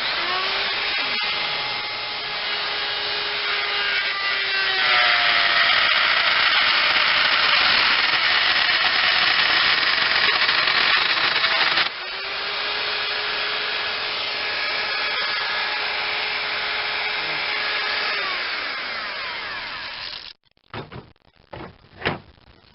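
A handheld wood router spins up and cuts into oak, its high motor whine steady under a dense chattering cutting noise that grows louder for several seconds. The noise drops suddenly about halfway through and the router runs on more lightly, then winds down and stops near the end. The bit has slipped out in the collet and is cutting clear through the door.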